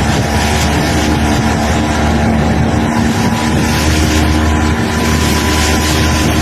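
Yamaha 15 hp outboard motor running steadily at an even speed on a test run after repair.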